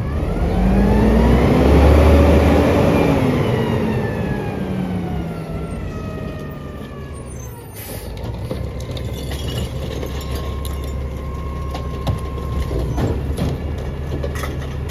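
Mack LEU CNG garbage truck pulling ahead. Its engine whine rises to a loud peak about two seconds in, then falls away over the next few seconds. From about eight seconds on the truck idles with a steadier drone and a level whine, and a few clicks.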